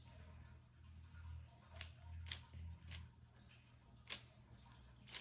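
Rubik's Cube layers being turned by hand: a handful of faint, separate plastic clicks with low handling rumble between them.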